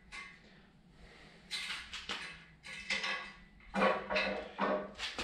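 Metal clanks and knocks from working an engine block on an engine stand: a string of sharp, ringing strikes that starts about a second and a half in and comes roughly every half second, louder toward the end.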